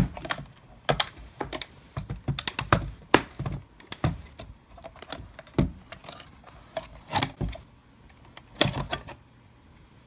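Irregular clicks and knocks of a Mac Mini's case cover being worked loose and lifted off its plastic inner frame, thinning out near the end.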